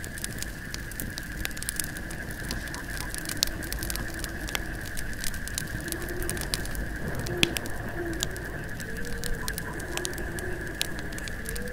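Campfire crackling with scattered sharp pops, over a steady high chirring of night insects such as crickets. From about halfway through, an owl gives short low hoots.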